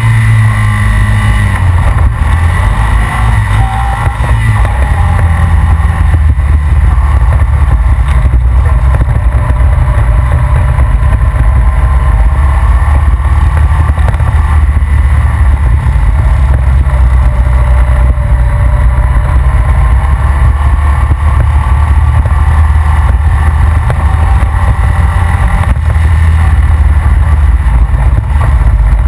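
Honda Rancher ATV engine running steadily while riding on a dirt road, a heavy, even low rumble picked up by a camera mounted on the ATV's front rack.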